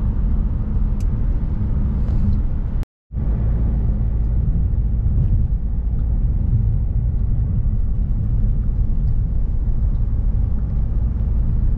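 Steady low rumble of a car driving at road speed, heard from inside the cabin. The sound cuts out completely for a moment about three seconds in.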